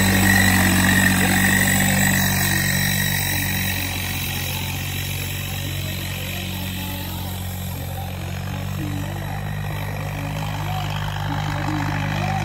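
Tractor engine running steadily at idle, with voices in the background.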